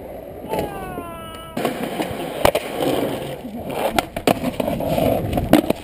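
Skateboard wheels rolling on concrete, with several sharp clacks as the board hits the ground and a concrete ledge. About a second in, a person calls out once, the voice falling in pitch.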